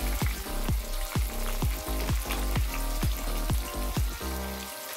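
Chopped onions sizzling as they fry in hot oil in a kadhai, just added and stirred with a wooden spatula. Background music with a steady thumping beat, about two beats a second, plays throughout and dips briefly near the end.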